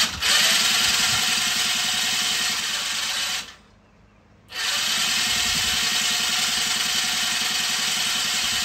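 Electric starter cranking the Polaris Scrambler 50's small two-stroke engine with the spark plug out. It spins steadily, stops for about a second near the middle, then cranks again, turning the engine over to clear oil and fuel out of the flooded cylinder and crankcase.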